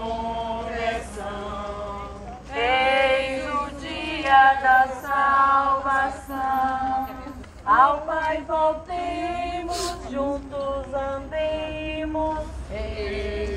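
A small group of mostly women's voices singing a hymn together, unaccompanied, in held notes of about a second each.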